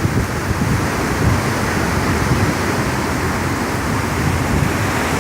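Hurricane-force wind blowing steadily, with low rumbling gusts buffeting the microphone.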